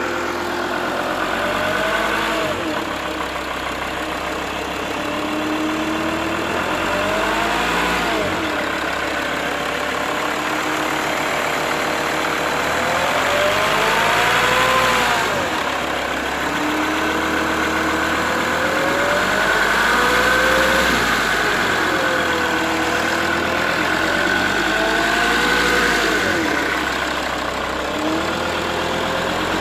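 Mercedes-Benz W211 E 270 CDI's five-cylinder turbodiesel engine revved up from idle and let fall back about five times, with a steady whine at times. The owner hears a hum between about 1000 and 2000 rpm that stays with the drive belt removed, that a new oil pump did not cure, and that goes away when the front of the car is raised 5–10 degrees.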